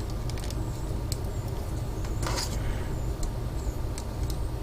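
Steady low hum under a few faint clicks of plastic model-kit parts being handled and pressed together, with a brief rustle about halfway.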